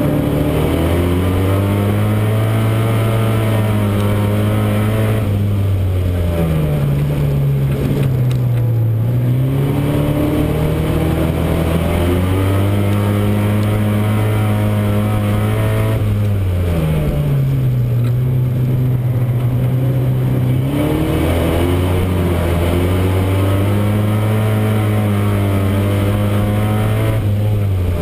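Euro Rod oval racing car's engine heard from inside the car, running hard and steady on the straights, then dropping in pitch as it lifts off for a bend and climbing again as it accelerates out, about five times over.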